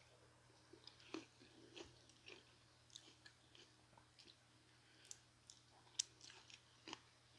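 Quiet chewing and biting of barbecue-seasoned corn on the cob: soft, irregular crunches and wet mouth clicks, with the sharpest crunch about six seconds in.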